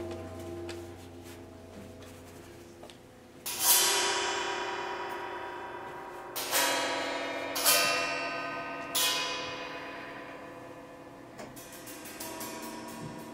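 Struck metal percussion improvising: a low ring fades out over the first few seconds. Then four strikes, bell-like, each ringing out with many overtones and dying slowly. Near the end comes a run of quick light ticks.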